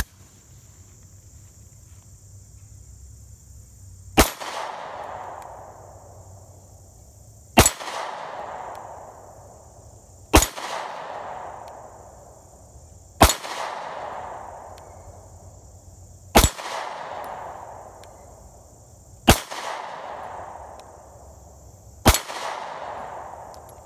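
Seven single shots from a Beretta Nano subcompact 9mm pistol firing 135-grain Federal Hydra-Shok hollow points, one about every three seconds, each followed by a fading echo. Crickets trill steadily behind.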